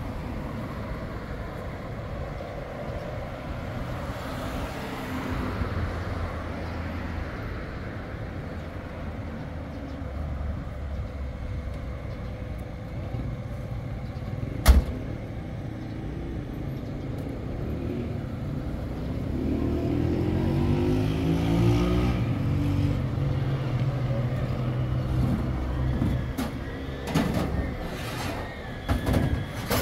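Street traffic rumbling steadily, with a nearby vehicle engine speeding up and grows louder for a few seconds about two-thirds of the way through, its pitch rising and falling. A single sharp knock sounds about halfway through, and a few clicks come near the end.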